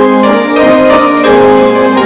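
Piano music: several held notes sounding together, the chords changing every half second or so.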